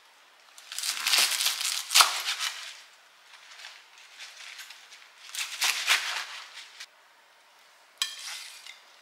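Kitchen handling noises: three bursts of rustling and crinkling with a few sharp clicks, the first and loudest lasting about two seconds, another about halfway, and a short one near the end.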